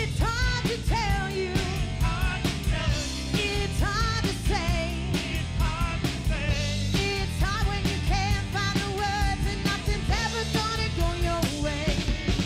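Rock band playing with no vocals: electric guitar over bass and a drum kit keeping a steady beat.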